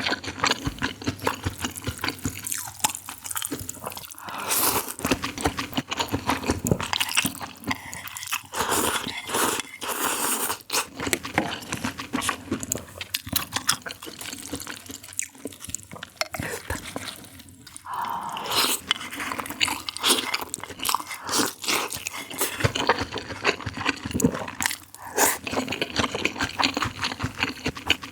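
A person eating right at the microphone: wet slurping and chewing sounds mixed with crunchy bites, in a dense, continuous run of mouth noises.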